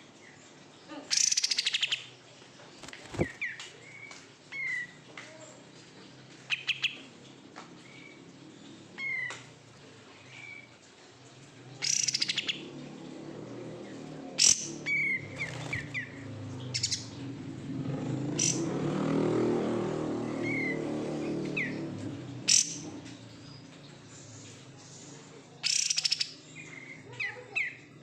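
Kapas tembak songbird calling: short chirps spaced every second or two, broken by a few louder, fuller song phrases. A low rumble swells and fades about halfway through.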